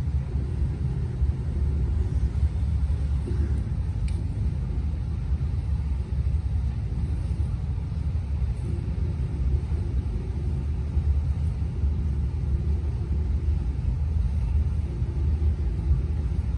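Steady low rumble on the deck of a motor yacht at sea.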